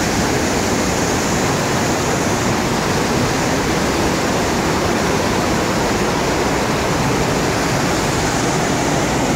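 Eagle Creek's whitewater cascading over a rock chute at Twister Falls, heard up close as a steady, loud rushing of falling water.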